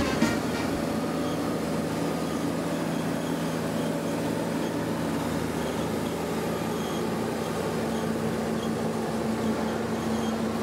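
Pellenc 8390 grape harvester running steadily as it works along the vine rows: a constant engine hum with a wash of machine noise.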